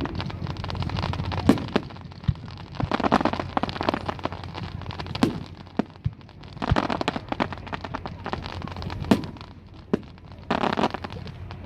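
Fireworks going off: four spells of dense crackling about three seconds apart, with sharp single bangs between them.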